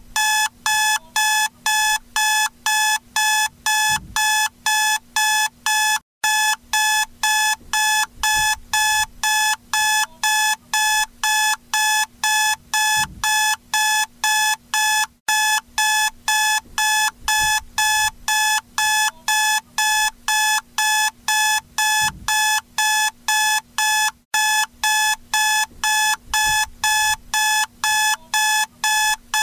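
Electronic wake-up alarm beeping: a fast, even run of high pitched beeps, about two to three a second. The run breaks off briefly roughly every nine seconds and starts again.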